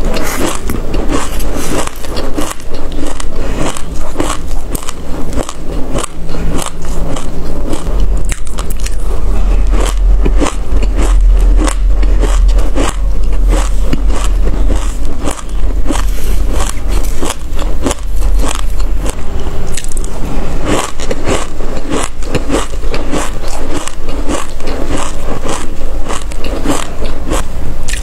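Close-miked chewing and crunching of a mouthful of dry black seeds: a dense, loud stream of sharp crackles and crunches, with a spoon scraping through the seed pile.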